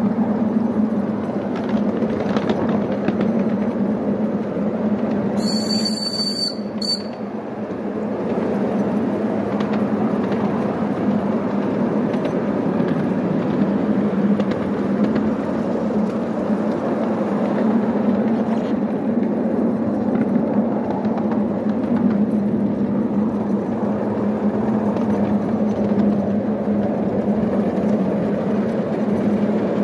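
Miniature Hunslet steam locomotive pushing a wagon of rails: the train rumbles steadily along the track. About six seconds in, the locomotive's high-pitched steam whistle sounds, one longer blast and then a brief one.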